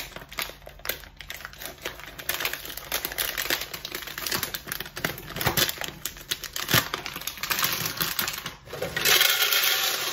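Dry macaroni pasta poured from a plastic packet into a glass storage jar: a rapid rattle of pieces clicking onto the glass, with the packet crinkling. It becomes a denser, steady rush of pasta about nine seconds in.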